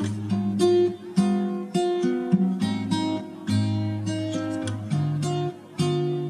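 Background music on acoustic guitar, with strummed chords and picked notes in a steady rhythm.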